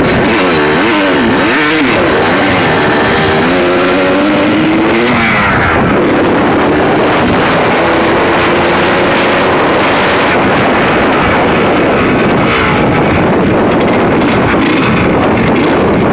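Suzuki RM125 two-stroke dirt bike engine under way, its pitch rising and falling again and again through the first half as the throttle is worked, then running more evenly.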